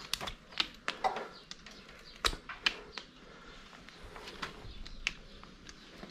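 A run of irregular sharp clicks and knocks, with one louder knock about two seconds in.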